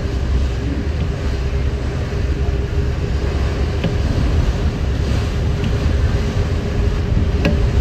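Passenger ferry's engine running steadily: a low rumble with a faint steady hum, mixed with water rushing past the hull and wind buffeting the microphone on the open deck.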